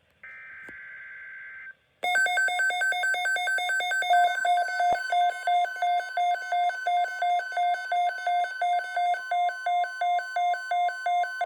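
Emergency Alert System activation: a short burst of SAME digital header data screech, then a loud electronic attention alarm of two tones beeping rapidly over and over. A steady tone joins faintly beneath the beeps in the second half.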